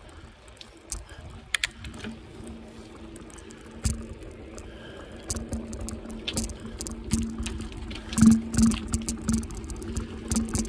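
Bicycle rolling along a tarmac street: a steady low hum of tyres on the road with irregular rattles and knocks as it goes over bumps, getting louder in the second half.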